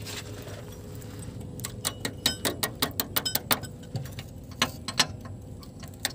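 Quick run of sharp metallic clicks, about seven a second for two seconds, then a few single clicks, from hand tools working on a handbrake cable fitting.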